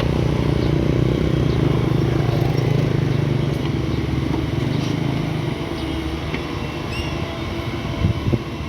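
Excavator's diesel engine running under load, a steady low drone that eases off about halfway through, with a couple of short knocks near the end.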